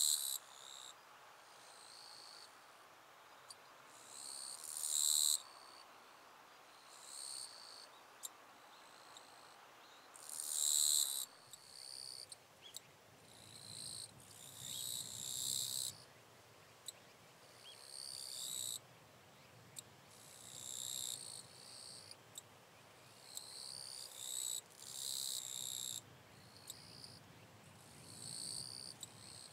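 Eastern Japanese katydid (higashi-kirigirisu) singing: a string of high, rasping buzzes, each about a second long and repeated every second or two, with short sharp clicks between them.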